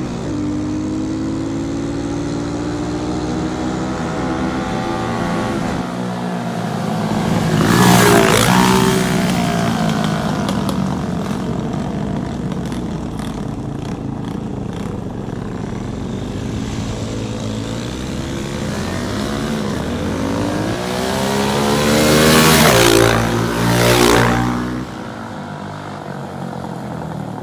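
Small single-cylinder dirt bike engines running as the bikes are ridden along the street. They grow much louder as they pass close by, about eight seconds in and again around 22 to 24 seconds, and the pitch falls as each one goes by.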